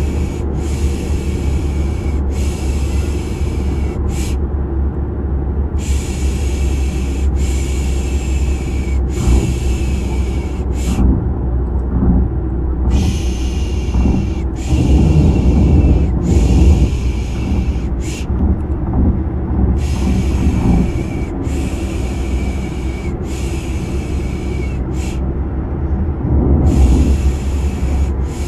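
Rhythmic 'shh, shh' shushing to lull a baby to sleep, in repeating groups of three long shushes and a short one with a brief pause between groups, over a steady low rumble of car noise.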